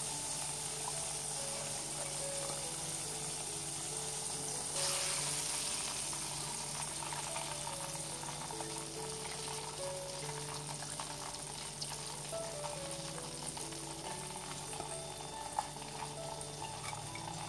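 Battered chicken pieces deep-frying in hot oil, a steady sizzle and bubbling that swells a little about five seconds in as a piece is turned in the oil. A soft background melody plays along.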